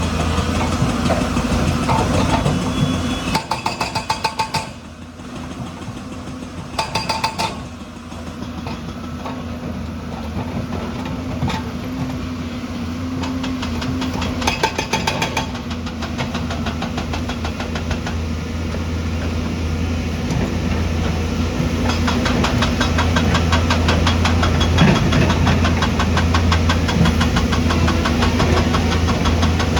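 Heavy diesel construction machinery running steadily, with short bursts of rapid pounding about 4, 7 and 15 seconds in.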